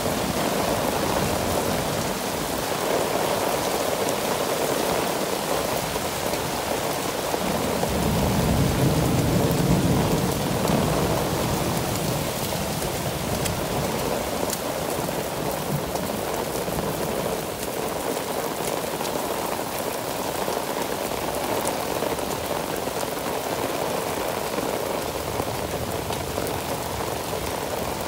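Heavy rain pouring steadily onto flooded pavement, a constant dense hiss of downpour. About eight seconds in, a low rumble swells for a few seconds and then fades.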